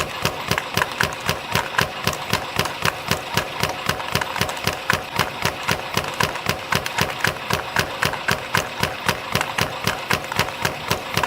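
CNC spring coiling machine (YHM CF-310) running in production, coiling 0.7 mm wire into compression springs: an even, rapid clacking about four times a second over a steady mechanical hum.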